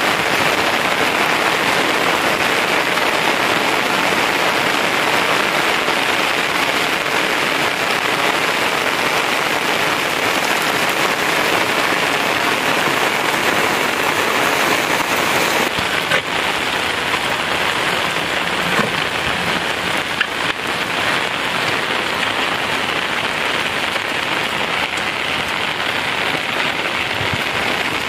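Steady rain falling, an even hiss of drops that thins a little about halfway through, with a few faint knocks later on.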